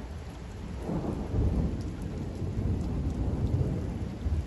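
Heavy rain falling on a flat rooftop, with a low rumble of thunder that swells about a second in and rolls on.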